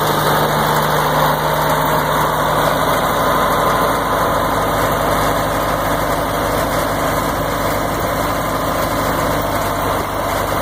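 Caterpillar 950 wheel loader's diesel engine idling steadily.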